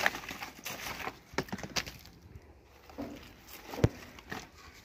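Rubbish being picked through by hand: rustling and crackling of plastic and debris, with scattered clicks and one sharp knock about four seconds in.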